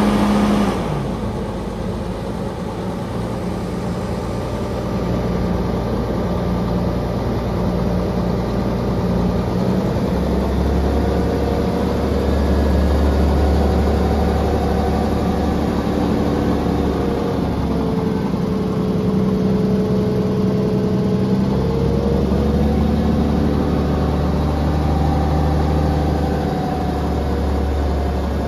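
Volvo A40 articulated dump truck's diesel engine running. About ten seconds in the engine note deepens and gets louder as the hydraulic rams lift the dump body; the pitch dips and then recovers partway through.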